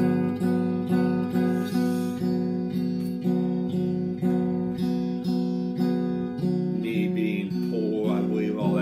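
Electric guitar strummed in a steady, even rhythm, the chord changing a little near the end.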